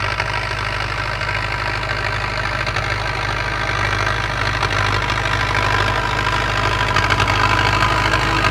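MTZ-82 tractor's four-cylinder diesel engine running steadily as the tractor pulls a field implement toward the listener, growing slightly louder near the end. The loud exhaust note is one that the owner puts down to a torn muffler.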